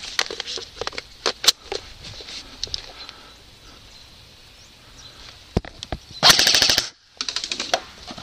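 Airsoft electric rifle firing two rapid full-auto bursts about six seconds in, each about half a second long, with a brief gap between them. Scattered sharp clicks and snaps come in the first three seconds.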